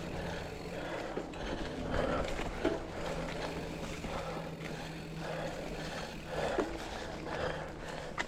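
A mountain biker breathing hard, about one breath a second, over the rattle and tyre noise of the bike on a dirt trail, with a couple of sharp knocks from the bike.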